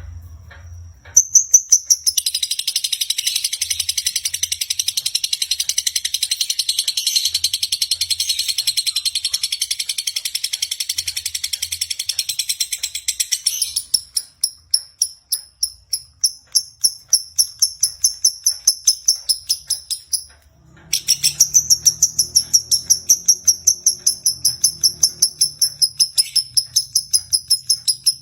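Lovebird singing a long, fast, high-pitched chatter of chirps in the unbroken 'konslet' style. About halfway through it breaks into separate chirps at about three or four a second, stops briefly about two-thirds of the way in, then goes back into rapid chirping.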